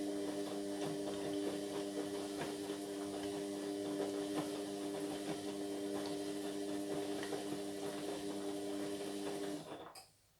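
Indesit MyTime washing machine's drum motor turning the drum during a wash tumble: a steady motor whine with light knocks and swishing of the laundry. It stops about nine and a half seconds in, at the end of the tumble.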